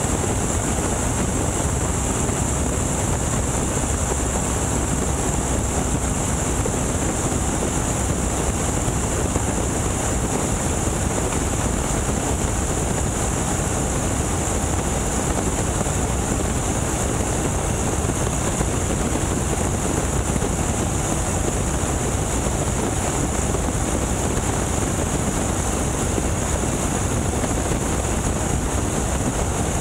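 Boeing Stearman biplane in steady flight, heard from the open cockpit: its radial engine running evenly under a constant rush of wind on the microphone.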